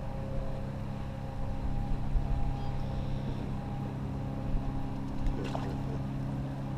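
Small fishing boat's motor running steadily with an even hum. A light click sounds about five seconds in.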